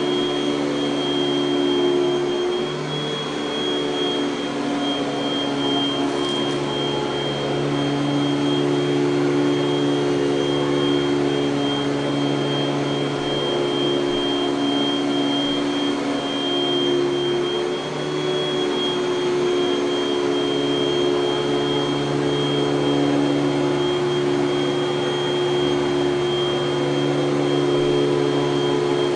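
1984 Panasonic Jet-Flo MC-5116 upright vacuum cleaner running steadily: a motor hum with a thin, high fan whine over the rush of air.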